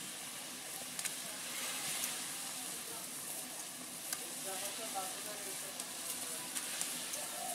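Curry boiling and bubbling with a steady hiss in a kadai as pieces of fried fish are slipped into the gravy. A few sharp clicks come through the hiss.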